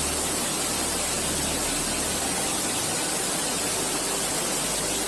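Floodwater rushing down a street in a fast torrent: a steady, even rush of water noise that holds at one level throughout.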